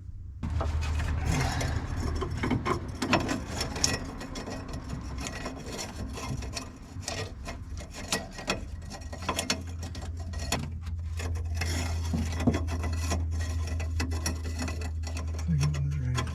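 Rasping, scraping and frequent sharp clicks of hand tools and metal parts as the brake-light switch and its bracket are refitted to the steering column with a hose clamp, over a steady low hum.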